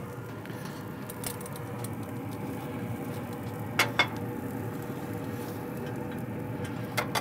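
A few sharp clinks of a plate and utensils at a pellet grill's grates: one about a second in, a double clink about four seconds in, and another near the end, over a steady low background noise with a faint constant hum.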